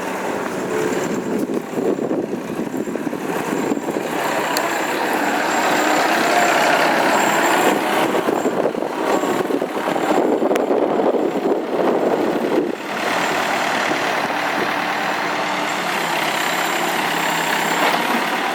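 Massey Ferguson 50A backhoe's engine running. It grows louder and rougher from about two seconds in, then drops suddenly to a steadier, quieter run about two-thirds of the way through.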